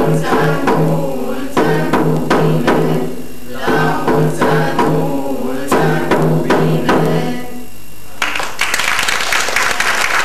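A group of young carolers singing a Romanian Christmas colind in unison to a small hand drum beaten with a stick; the song ends about seven and a half seconds in, and audience applause starts about a second later.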